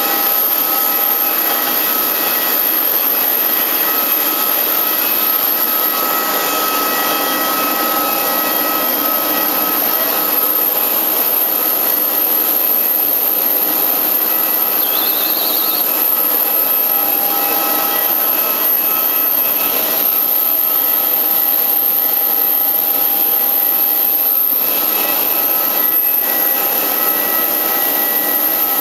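Steady, loud machinery noise on an airport apron: a rushing hiss with several steady pitches and a high steady whine, of the kind that aircraft and ground equipment running at the stand make. A brief high chirp comes about halfway through.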